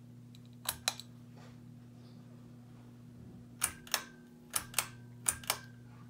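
Ceiling fan pull-chain switch clicking: four pulls, each a quick double click. Under the clicks runs a steady low electrical buzz from the fan.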